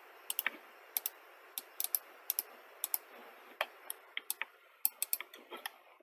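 Computer mouse clicking at an irregular pace, some clicks in quick pairs, over a faint steady hiss.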